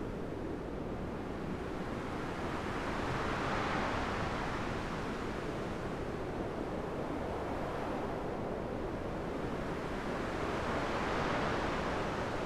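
A steady rushing noise that swells twice, about four seconds in and again near the end.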